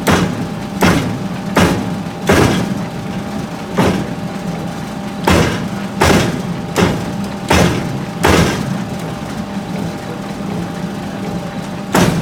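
Hammer blows on hot steel forging an axehead: about ten ringing strikes, mostly about three-quarters of a second apart, then a pause of nearly four seconds and one more strike near the end. A steady machine hum runs beneath.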